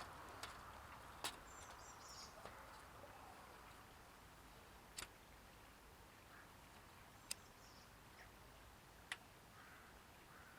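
Near silence: faint outdoor ambience with about five sharp isolated clicks spread through it and a couple of faint high bird chirps, around two seconds in and again about seven seconds in.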